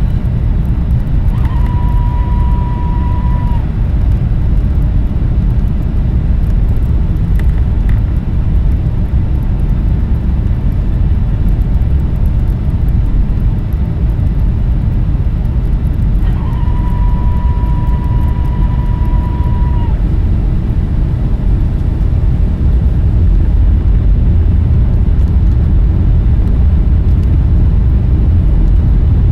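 Steady low rumble of jet airliner cabin noise, engines and airflow heard from a window seat, growing a little louder over the last few seconds. Twice a steady high tone sounds over it, about two seconds long early on and about four seconds long midway.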